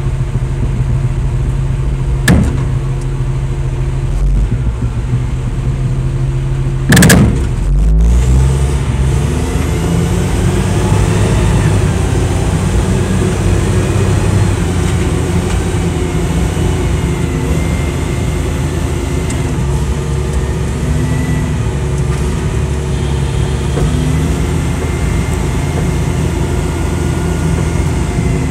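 Heavy diesel truck engine running under load, heard from inside the cab of a loaded concrete mixer truck being pulled out of mud. A sharp click comes about two seconds in and a loud bang about seven seconds in. After the bang the engine picks up, with a whine rising in pitch, and keeps working steadily.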